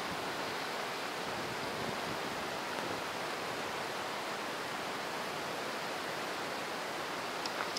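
Very heavy rain pouring down in a steady, even hiss.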